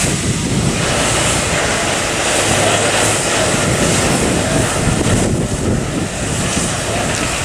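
Steam locomotive letting off steam: a loud, steady rushing hiss, with a brief lull about five seconds in.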